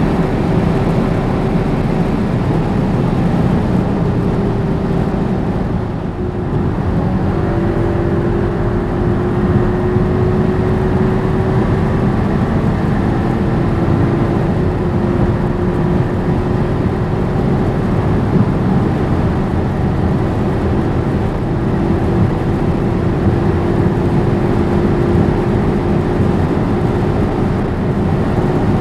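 Skoda Superb 4x4 driving fast, a steady engine drone over wind and tyre noise. The sound dips briefly about six seconds in, then the drone carries on at a slightly different pitch.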